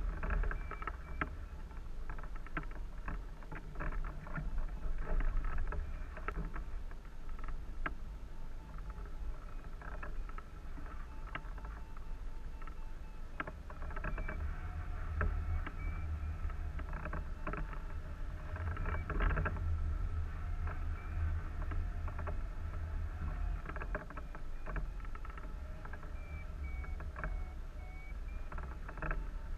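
Airflow buffeting a camera mounted on a hang glider's wing in flight: a steady low rumble with crackling gusts. A faint high beeping from the variometer comes and goes over it, which in thermaling flight signals the glider climbing in lift.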